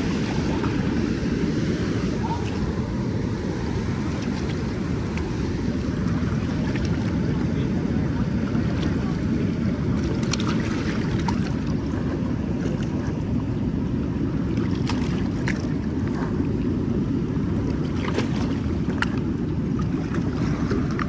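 Steady low rushing of river water in the current below a lock and dam, with wind buffeting the microphone. A few faint ticks come through on top.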